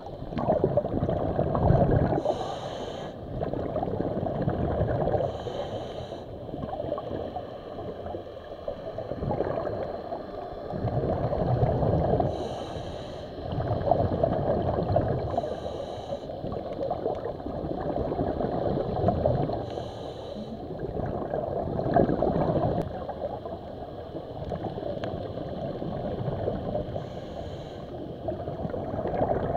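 Slow, regular breathing heard through water, with gurgling bubbles; each breath swells up and dies away about every three to four seconds.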